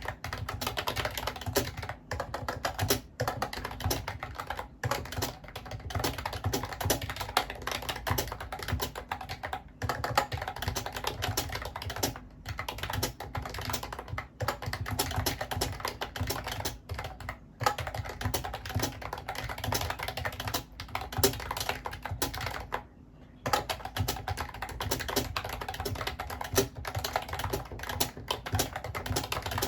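Fast, continuous typing on a Mofii Candy wireless keyboard, its round typewriter-style keys clacking, with brief pauses, the longest about three-quarters of the way through.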